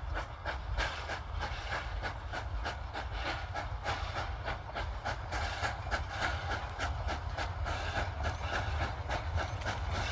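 Nevada Northern No. 40, a Baldwin 4-6-0 steam locomotive, working with a train of boxcars, its exhaust beating in rapid, regular chuffs. A steady low rumble runs underneath.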